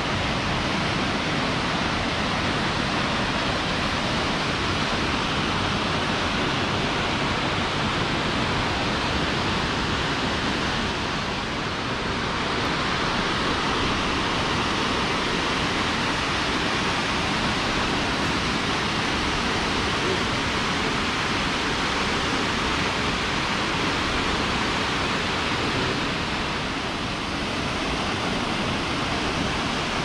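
Steady rushing of falling water from the Konaka waterfalls, a tall, narrow mountain waterfall, heard as an even, unbroken hiss across the gorge.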